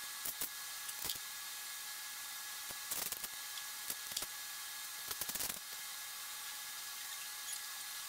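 Red construction tape being pulled off the roll and pressed onto the walnut slab: a few short noisy strokes, clustered about three seconds in and again around five seconds in, over a steady background hiss.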